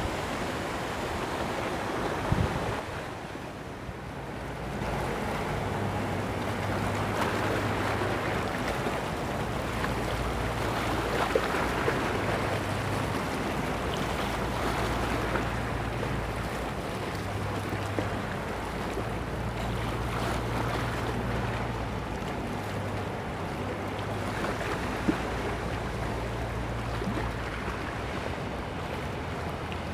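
Rough sea surf washing in steadily with strong wind buffeting the microphone, under a low hum that comes and goes.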